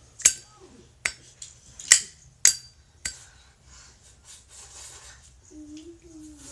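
Zippo lighter's metal lid snapping open and shut in a string of sharp, ringing metallic clicks, about five in the first three seconds.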